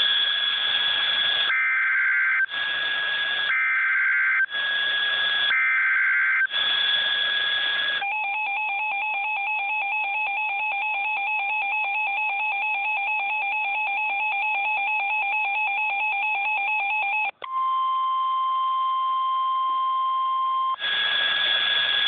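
Emergency Alert System tones from a weather radio broadcast. First come bursts of warbling digital data tones, about one per second, for roughly eight seconds. Then a steady two-tone attention signal holds for about nine seconds and cuts off sharply, followed by a single steady alert tone for about three seconds and another run of data tones near the end.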